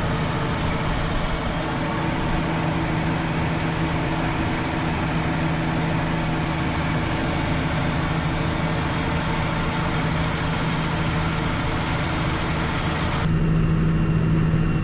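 Tractor engine running steadily under load, heard from inside the cab while spraying, as a constant low hum with a wide hiss over it. About 13 seconds in the hiss drops away and the low hum stands out more.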